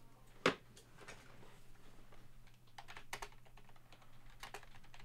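Computer keyboard typing: scattered quick key clicks, thickest in the second half, with one sharp louder click about half a second in.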